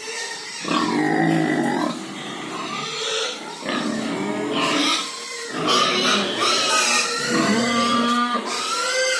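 Several pigs squealing and grunting, their calls overlapping, with some long, high-pitched squeals.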